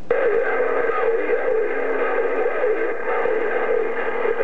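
A CB radio receiver on 27.025 MHz putting out static and garbled, overlapping signals with several steady tones under the hiss. It starts abruptly, as if a station had keyed up, and carries no intelligible words.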